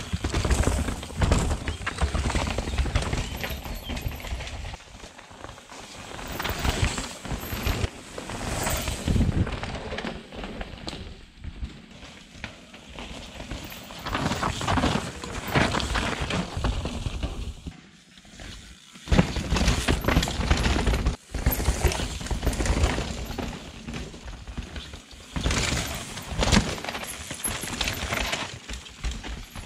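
Mountain bikes riding over a rough, rocky dirt trail: tyres crunching over dirt and stones, with repeated knocks and rattles as the bikes hit rocks and roots.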